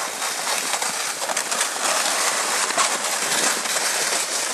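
Red plastic sled sliding downhill over snow, a steady scraping hiss.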